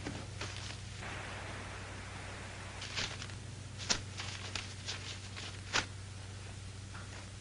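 Faint scattered sharp clicks and taps over a steady low hum, with a soft hiss for a couple of seconds about a second in.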